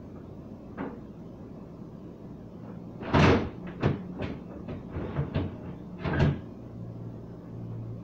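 Refrigerator shelves, drawers and containers being handled while the fridge is cleaned out: a loud clatter about three seconds in, a string of lighter knocks, and another loud clatter just after six seconds.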